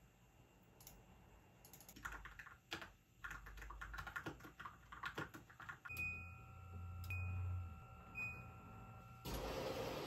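Computer keyboard typing, quick irregular key clicks. Then a front-loading washing machine's control panel gives three short high beeps about a second apart as its buttons are pressed, over a low hum, and a louder steady noise starts near the end.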